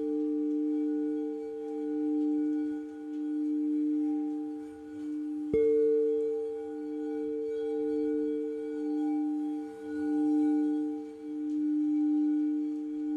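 Singing bowl ringing with a sustained tone that swells and fades in a slow pulse, struck again about five and a half seconds in.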